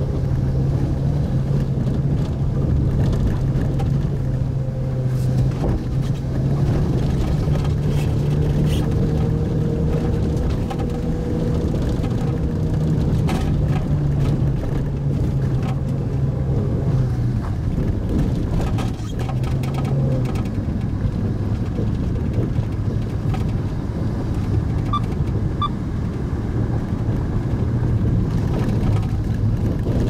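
Pajero Mini kei 4x4's engine droning steadily inside the cabin, with tyre and road noise and scattered clicks and knocks over the rough forest road. About two-thirds of the way through, the engine note drops lower.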